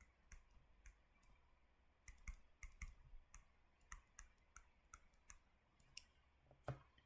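Near silence broken by faint, irregular clicks, more than a dozen of them, bunched most closely between about two and three and a half seconds in.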